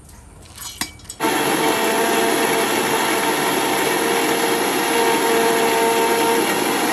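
Electric mixer grinder (mixie) running, grinding onion, garlic, ginger, cumin, coriander and soaked dried chillies into a curry paste. After a couple of clicks, the motor starts abruptly about a second in and runs steadily with a grinding noise and a steady whine.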